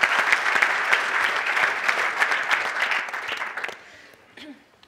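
Audience applause welcoming a speaker onto the stage, a dense patter of many hands clapping that dies away about three and a half seconds in.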